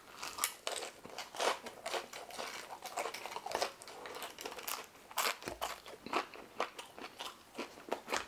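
A person chewing a mouthful of french fries, with many irregular crunches.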